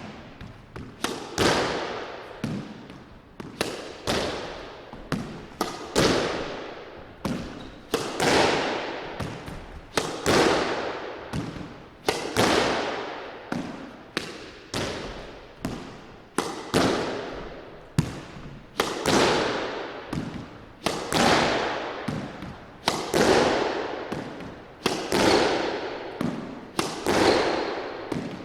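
Squash ball struck with a racket against the court walls again and again in a solo practice rally, echoing in the court. A loud smack comes about every two seconds, with lighter hits between.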